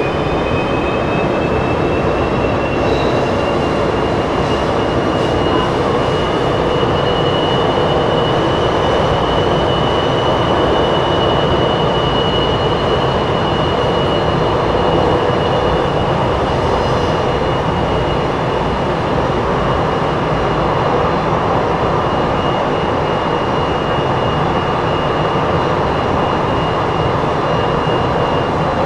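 Inside a CSR Zhuzhou light-rail train carriage running between stations: a steady rumble from the wheels and track, with the high whine of the electric traction motors rising in pitch over the first few seconds, then holding steady and easing slightly near the end.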